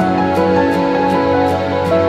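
Background music: sustained pitched chords over a light, even beat of about two or three ticks a second.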